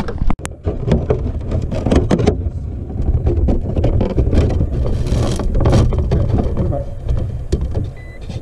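Close-up handling noise of a camera being fitted inside a hard plastic RC truck body: a rapid string of knocks, clicks and scraping, with low rubbing rumble on the microphone.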